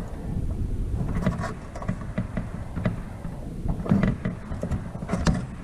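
Irregular small clicks, taps and scrapes of a soldering iron and tools handled against a circuit board while a capacitor is being desoldered, over a steady low rumble.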